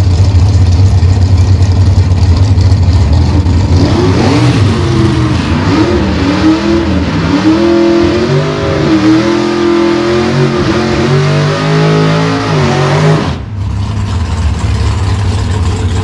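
Drag race car engine idling with a steady low rumble, then revved up and down over and over at the start line from about four seconds in. The revving cuts off abruptly near the end, giving way to a quieter engine idle.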